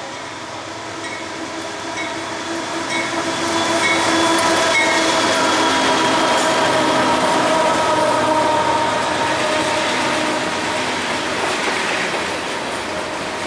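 CSX freight train passing close by: the diesel locomotives' engines grow louder and go by about four seconds in, followed by the freight cars rolling past on the rails. A bell rings about once a second during the first few seconds.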